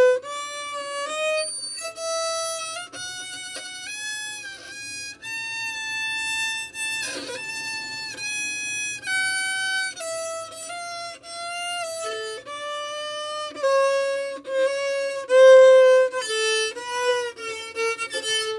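Full-size (4/4) violin bowed by a beginner, playing an A major scale slowly, one held note at a time. It climbs about an octave over the first six seconds, comes back down, then runs more notes in the lower part of the range.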